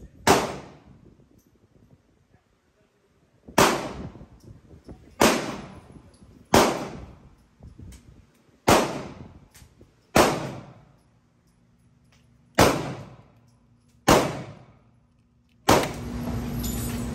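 Hi-Point 995 9mm carbine fired eight single shots in slow fire, about one and a half to two and a half seconds apart, each with a short echoing tail. A steady noise with a low hum comes in near the end.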